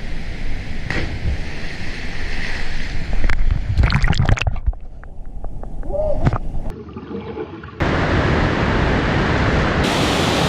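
Water splashing, sloshing and gurgling, with a steady rush of water in the last few seconds.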